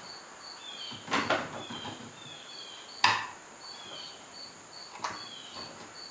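A lathe apron's half-nut mechanism worked by hand on the lead screw: three sharp metallic clicks about two seconds apart, the loudest in the middle, as the test half nut is engaged and released. Crickets chirp in a steady rhythm behind it.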